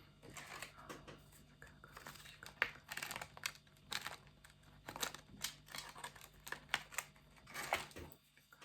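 Close-miked ASMR trigger sounds: an irregular run of short, crisp scratching and tapping strokes, about two a second, that stops near the end.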